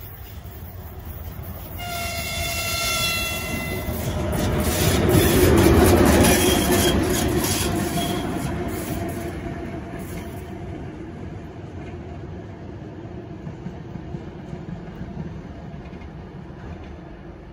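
Locomotive horn sounding one steady note for about two seconds, followed by a train passing with wheels clacking over the rails. The rumble rises to its loudest about six seconds in and then fades away.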